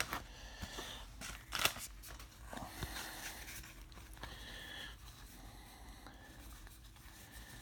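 Baseball cards being handled and flipped through: soft scrapes and rustles of card stock with a few light clicks, the sharpest about two seconds in.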